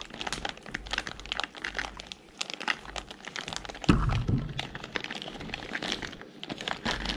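Foil-lined Mountain House freeze-dried meal pouch crinkling as its zip top is pressed shut after boiling water has been poured in to rehydrate the beef stew, with a dull thump about four seconds in.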